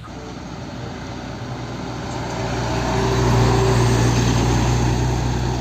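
A vehicle engine running with a steady low drone, growing louder over the first three seconds or so and then holding.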